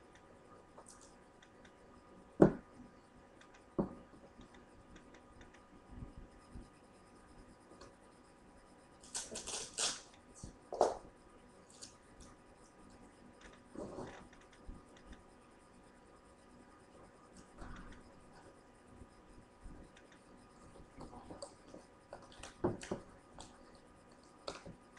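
Handling of clear tape and a plastic basket: scattered knocks and taps, the sharpest about two and a half seconds in, and a short rasping stretch around nine to eleven seconds in as tape is worked off the roll and cut.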